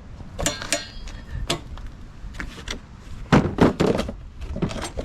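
A string of clunks and knocks from a walk-behind trimmer mower's cutter-engagement lever and belt tensioner linkage as the lever is pulled back to engage, the loudest a pair about three and a half seconds in.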